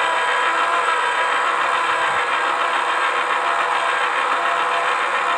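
Small electric motor of a toy pottery wheel running steadily, a constant whine over a hum as the wheel head spins.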